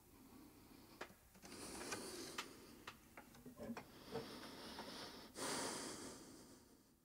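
Faint room noise with a few scattered sharp clicks and soft rustling swells, fading out to silence at the very end.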